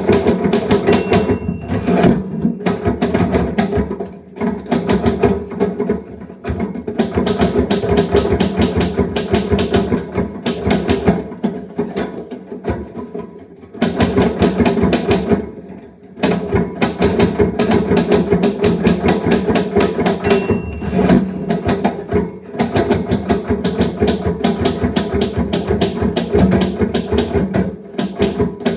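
Typewriter typing: rapid, uneven runs of key clacks, broken by short pauses. A brief ringing ding comes twice, about a second in and about twenty seconds in.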